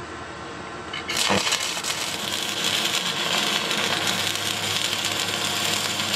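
Arc welding on steel: the arc strikes suddenly about a second in, then sizzles steadily as a weld bead is run.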